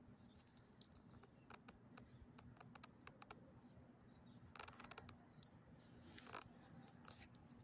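Faint scattered clicks and light jingling from a small dog's collar tags and its paws shifting on loose gravel as it sniffs about, with two short rustling bursts, one a little past the middle and one later.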